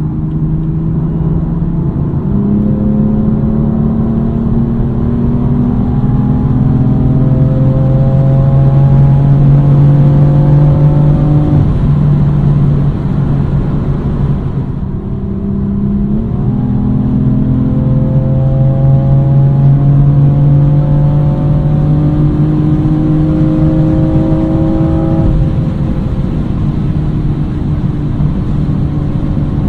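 BMW M4 Competition's twin-turbo inline-six at full-throttle acceleration, heard from inside the cabin. The engine note jumps up in pitch about two seconds in as the gearbox drops into fifth, then climbs steadily with the revs. It drops back briefly about halfway through, climbs again and levels off near the end.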